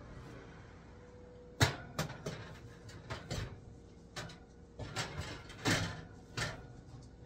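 Oven door opening and a metal angel food cake pan being set onto the wire oven rack: a sharp clank about a second and a half in, then a string of lighter knocks and rattles of metal against the rack.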